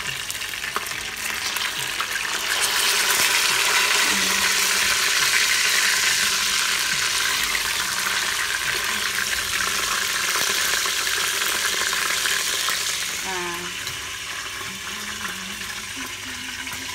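Hot oil sizzling steadily as pieces of golden pomfret pan-fry in an electric pressure cooker's inner pot. The sizzle grows louder about two seconds in and eases off after about thirteen seconds.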